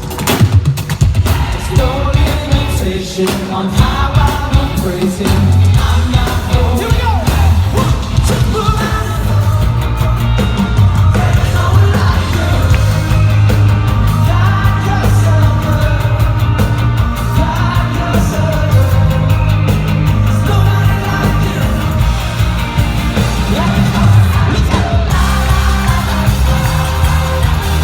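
Live worship band playing loud amplified rock-pop with sung vocals and a heavy bass line, recorded from the crowd.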